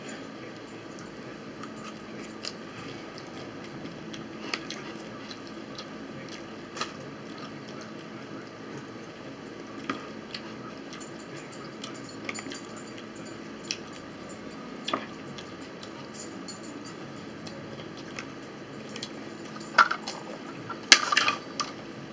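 Eating sounds: a fork clicking and scraping against a plate of salad, now and then, with some chewing. Near the end comes a louder short clatter as a plastic drinking cup is picked up.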